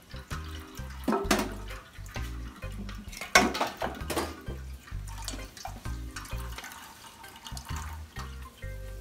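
Warm water splashing and dribbling through a plastic strainer of grated radish into a pot below, with a few louder splashes in the first half, over background music with a steady beat.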